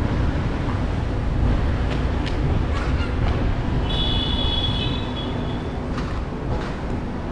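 Outdoor background noise: a steady low rumble of wind and traffic on the microphone, with a few light clicks. About four seconds in, a brief high whistle-like tone lasts just over a second.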